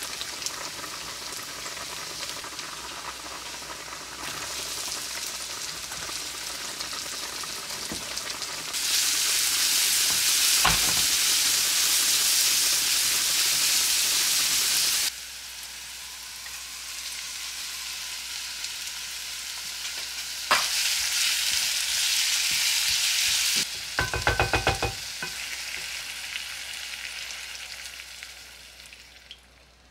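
Food sizzling and frying in a pan while being stirred, the sizzle louder in some stretches than others. A couple of sharp knocks, and near the end a short rapid clatter of a utensil against the pan before the sizzle fades away.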